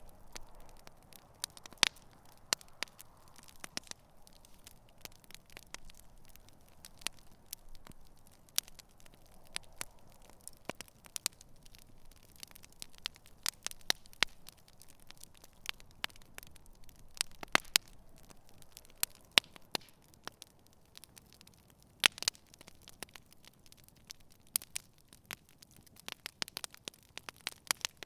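Wood campfire crackling, with irregular sharp pops and snaps over a faint steady hiss of the flames.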